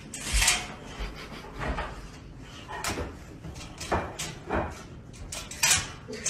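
Metal pet crate door and its slide-bolt latch rattling and clacking in short, irregular knocks as the animal inside works at the latch with its mouth.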